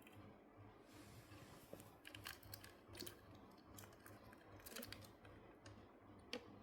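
Faint, scattered clicks and scratches, a lovebird's claws and beak gripping as it climbs, over near silence.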